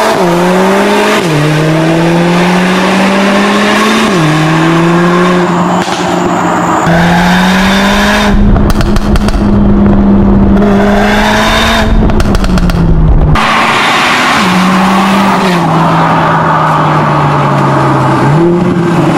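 Mercedes-AMG CLA45 S's turbocharged 2.0-litre four-cylinder engine, heard through a Fi Exhaust cat-back system, accelerating hard through the gears. The pitch climbs and then drops sharply at each upshift, several times over. A heavy low rush joins it for several seconds around the middle, and near the end the pitch jumps up quickly, as on a downshift.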